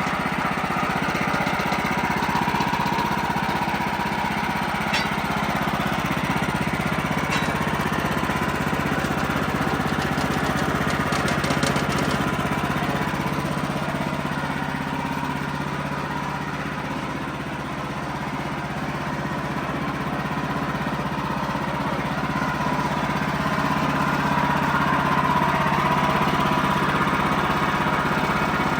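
Wood-Mizer LX55 sawmill's engine running steadily under way, its level sagging a little around the middle and then picking back up.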